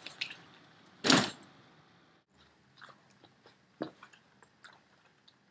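Loaded nylon assault pack being handled: one loud rustling swish of fabric about a second in, then a few faint clicks and knocks from the gear strapped to it.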